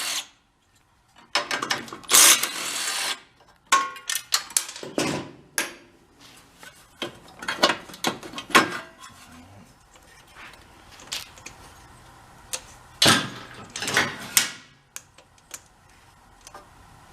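Bolts being taken off a small snowblower engine: a power driver spins in short bursts, with ratchet clicking and metal tools and parts clinking between them.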